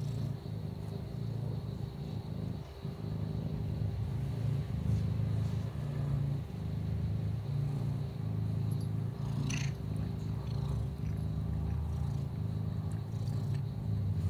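Ginger tabby kitten purring steadily while being stroked, a low, rough purr that pulses a little more than once a second.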